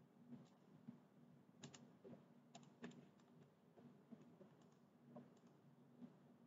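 Faint, scattered clicks of a computer mouse and keyboard, with a few sharper clicks in quick pairs and triplets around the middle.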